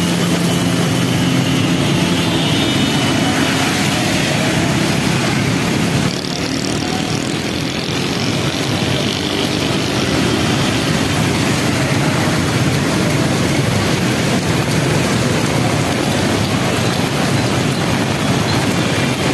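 Road traffic in heavy rain on a flooded road: auto-rickshaw, motorcycle and car engines running steadily under a constant hiss of rain and tyres through standing water.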